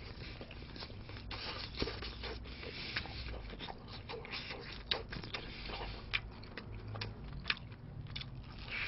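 Biting and chewing crispy fried chicken: an irregular run of sharp crunches and crackles.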